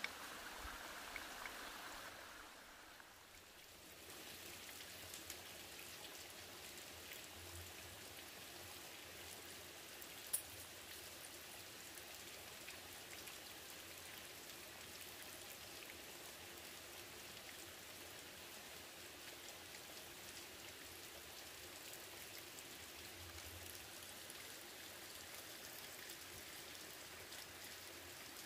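Faint steady rushing of running water, with light ticks and one sharp click about ten seconds in from split bamboo strips being handled as a basket is woven.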